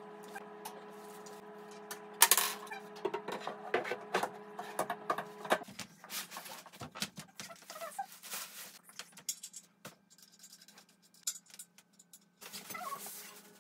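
Knocks, clicks and scrapes from handling and assembling a flat-pack particleboard desk cabinet and its metal frame, with a sharp knock about two seconds in. A steady hum sits under the first half and stops suddenly about halfway.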